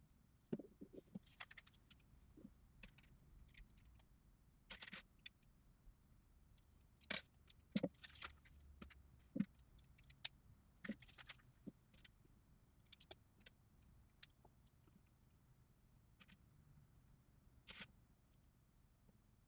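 LEGO bricks being handled and pressed together: irregular sharp plastic clicks and small clatters, with little between them, played back at four times speed.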